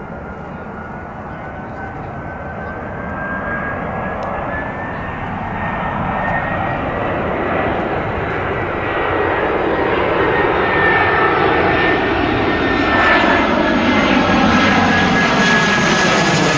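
Airbus A320-family twin-jet airliner on landing approach, its jet engines and airframe noise growing steadily louder as it comes in low overhead. A steady high whine runs through it, and near the end several tones slide down in pitch as it passes.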